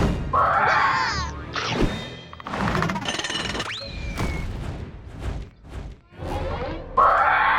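Cartoon soundtrack: music with slapstick sound effects, several thuds and crashes, and a whistle-like glide that rises and then falls about halfway through. A yell comes near the start and another near the end.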